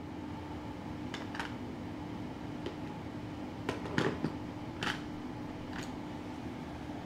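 Steady hum of a room fan, with a few light clicks and taps from makeup tools being handled. The loudest cluster of clicks comes about four seconds in.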